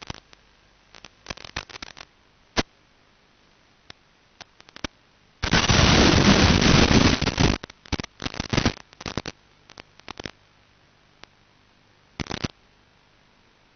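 Crackling bursts of radio static from an analog FPV video receiver's audio channel, with a loud rush of hiss about five and a half to seven and a half seconds in. The static comes as the video signal breaks up, a sign of RF interference or a weak transmitter signal.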